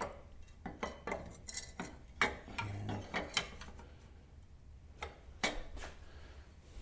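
Steel mounting bracket being handled and set into place on a tractor's steel frame: scattered metal clinks and clanks, more of them in the first half.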